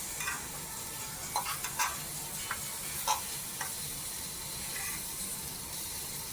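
Shrimp sizzling in a frying pan: a steady hiss, with a few light clicks and taps scattered through.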